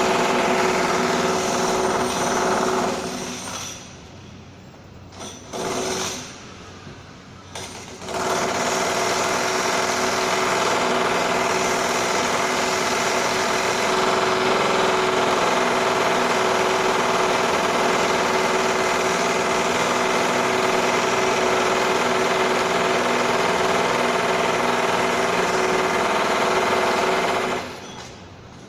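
Renovation drilling: a power drill running with a steady whine, about three seconds at first, a short burst around six seconds in, then a long unbroken run from about eight seconds in that stops near the end.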